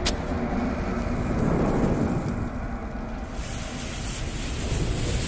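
Sound effect of a lit bomb fuse hissing over a low rumble, opening with a sharp click. The hiss grows brighter about three seconds in, building toward an explosion.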